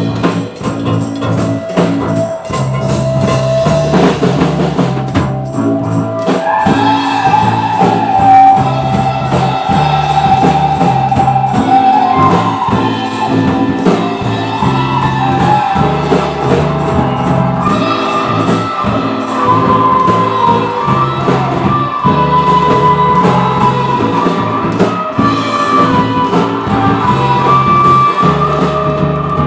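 A band playing a song, with drums and a steady bass line under a sustained melody line that comes in about seven seconds in.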